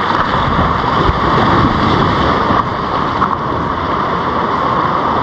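Steady rushing noise of wind and sea surf, with no distinct events.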